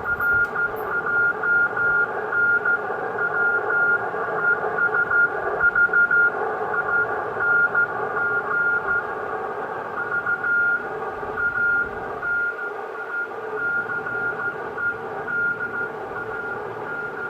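Morse code (CW) signal received on an amateur radio receiver tuned to 7.015 MHz in the 40-metre band: a single high beeping tone keyed on and off in dots and dashes, over a steady hiss of band noise.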